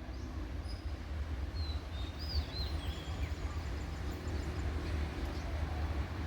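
Steady low rumble, with a few short bird chirps about two seconds in.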